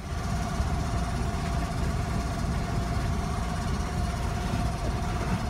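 A catamaran's engine running steadily while under way: a constant low rumble with a steady hum through it.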